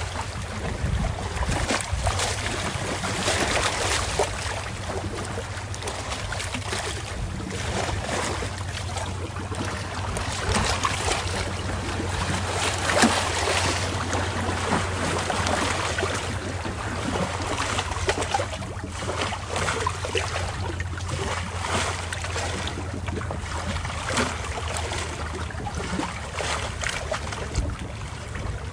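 Marina ambience: wind on the microphone and water noise with many small irregular splashes and knocks, over a steady low hum.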